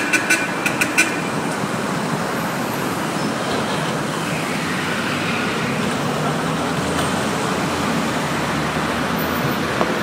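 Vehicle engines and road traffic running steadily, with a quick run of short horn toots in the first second.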